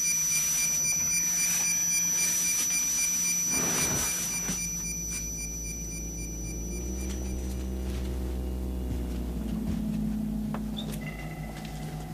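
Electronic sci-fi sound effects: several steady high whistling tones, then a low electronic drone whose held tones bend slightly upward and later slide back down.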